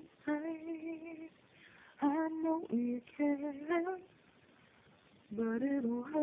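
A woman singing unaccompanied, holding long notes with a wavering vibrato, in three phrases broken by pauses of about a second.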